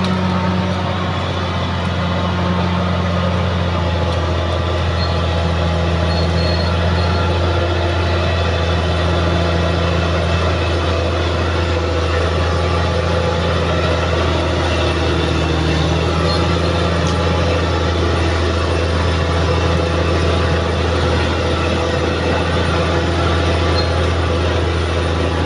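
Caterpillar D6R XL bulldozer's diesel engine running steadily, a deep, even drone.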